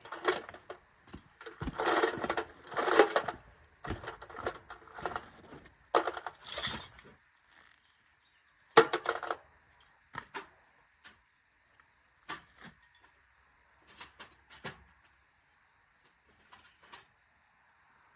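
Metal sockets and hand tools clinking and rattling as they are handled, with a dense clatter for the first several seconds, one sharp clink near the middle, then a few scattered light clicks.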